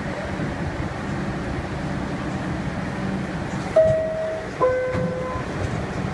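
Steady hum and rumble inside an R62A subway car. About four seconds in, the door chime sounds two descending notes, a higher one and then a lower one, the signal that the doors are about to close.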